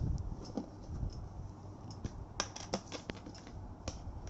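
Small plastic slime-kit containers handled on a table: scattered sharp clicks and taps, a few louder ones a little after halfway, as a glue bottle and a box are picked up and opened.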